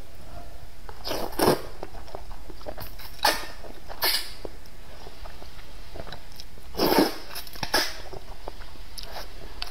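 Slurping and chewing wide flat rice noodles in hot pickled-pepper broth, with about five loud slurps a second or more apart.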